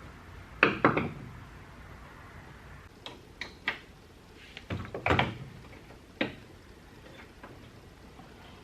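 Several short knocks and clatters in a few clusters, the loudest about a second in and again around five seconds in.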